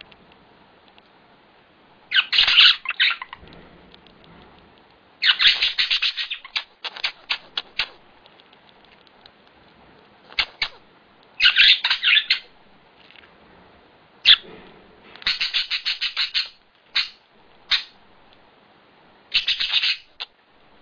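A pet making repeated short, noisy hacking fits, each a burst or a quick stuttering run, every couple of seconds. The owner cannot tell whether they are coughs or sneezes.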